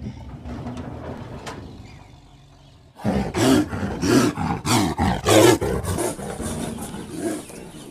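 A big cat growling low, then from about three seconds in a rapid run of loud roars that tail off after about six seconds.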